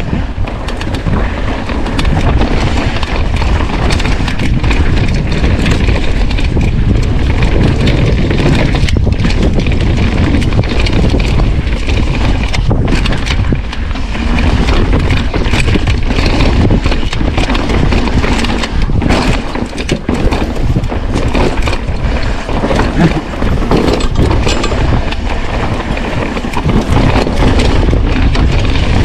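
Loud, unbroken rush of creek whitewater, with frequent short splashes and knocks through it.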